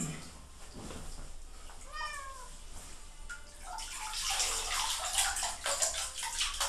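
A wet domestic cat meows once, a short call rising and falling in pitch, about two seconds in. From about four seconds on, water splashes and spatters in a filled bathtub, louder than the meow.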